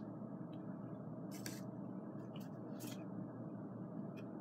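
Pokémon trading cards being handled and slid against one another as the next card is brought to the front of the stack: a few short scrapes over steady room hiss.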